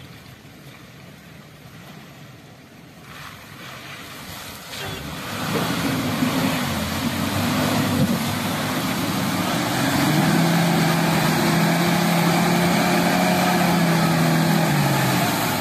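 Soft-top 4x4's engine revving hard under load, driving up a muddy stream bed with its wheels spinning and throwing mud. Faint at first, it grows loud about five seconds in and holds high, steady revs before easing off at the very end.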